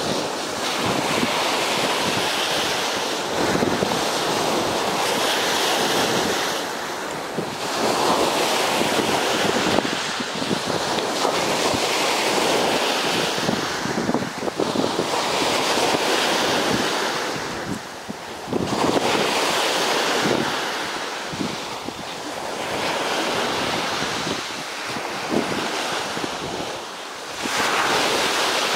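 Surf washing onto a sandy beach, swelling and easing every few seconds, with wind buffeting the microphone.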